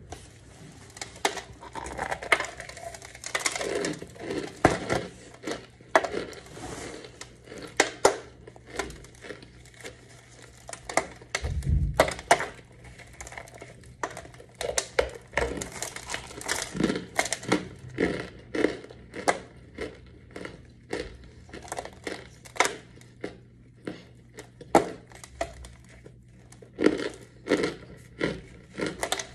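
Crunchy bites into a dense, chalky white powder brick, with chewing and the brick cracking and crumbling as it is squeezed in the hands: a run of sharp, irregular crunches, several a second.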